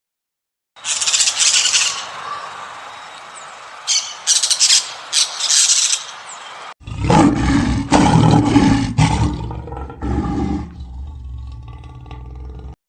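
Animal sounds in two parts: first sharp, high-pitched bursts over a steady hiss, then after an abrupt cut about seven seconds in, a loud, deep, rough roaring call with a low rumble beneath, fading near the end.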